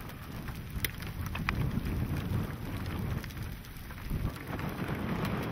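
Thunderstorm weather on the microphone: a low, fluctuating wind rumble with rain hiss and a few sharp taps of drops.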